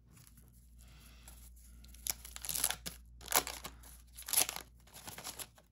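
A 1991 Fleer basketball card pack's wax-paper wrapper being torn open and crinkled in the hands. It comes as several short rustling tears in the second half.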